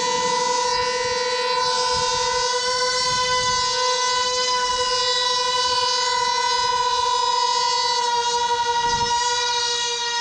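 Two-stroke glow engines of F3D pylon-racing model planes running at full throttle while held at the start line: a steady, piercing high whine with many overtones.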